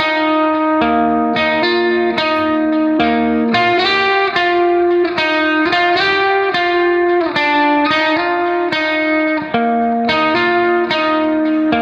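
Background music: a plucked guitar melody of quick, clearly separated notes.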